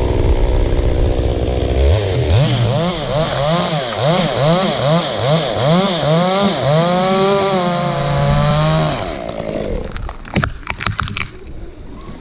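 Chainsaw idling, then revved over and over with the pitch rising and falling about twice a second, held at higher speed for a second or two, and let back down. A few sharp knocks follow near the end.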